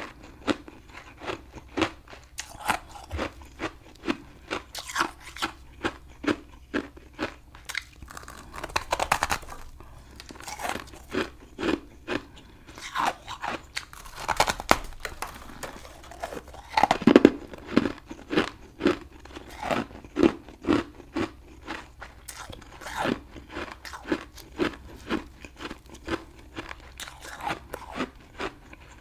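Close-up crunching of hard frost chunks (humidifier frost) being chewed, a steady rhythm of about two crunches a second. A few heavier crunching bites stand out, the loudest about two-thirds of the way through.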